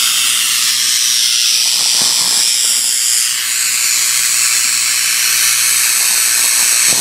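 Spark-gap Tesla coil running: the spark gap firing continuously makes a loud, steady hissing buzz, with a faint low hum beneath it.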